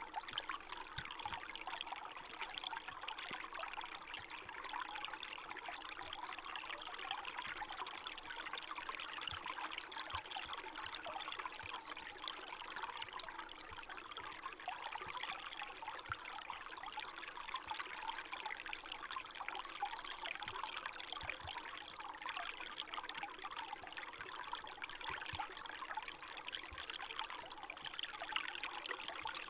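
Forest stream flowing steadily, its water running and trickling without a break.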